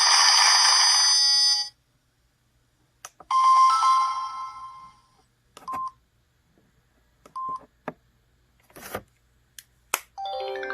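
Samsung SGH-E315 mobile phone ringtone, an electronic melody that cuts off about a second and a half in. After it come single electronic beeps, a few sharp clicks, and near the end a short run of notes stepping downward in pitch.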